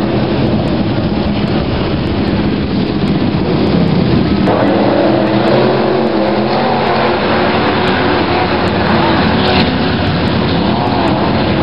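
Several winged sprint cars racing together, their engines running loud and constant with pitches rising and falling as cars pass. About four and a half seconds in, the engine sound turns brighter as cars come nearer.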